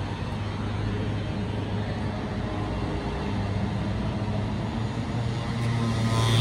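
Steady low drone of a vehicle, a constant hum over noise, with music fading in near the end.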